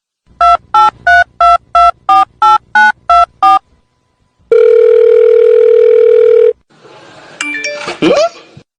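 Telephone keypad tones dialing about ten digits in quick succession, each beep a pair of tones, then a steady phone tone held for about two seconds. Near the end come a few short sliding sounds.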